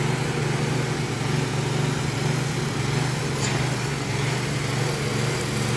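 Motor of dryer-vent cleaning equipment running steadily with a low, even drone.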